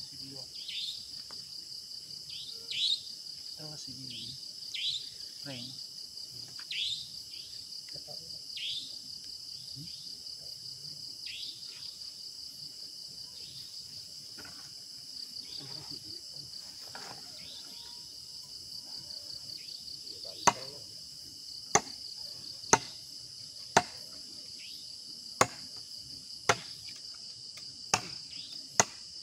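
Night insects, crickets, trilling steadily in a high, even chorus, with short falling chirps scattered through the first half. From about two-thirds of the way in, a series of sharp knocks comes roughly once a second.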